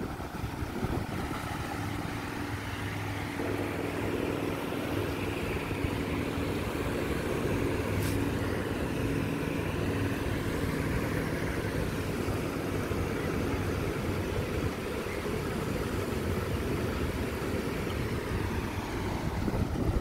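Surf washing onto a sandy beach as a steady hiss, with a low engine hum underneath that is strongest in the first half and fades later. A single sharp click about eight seconds in.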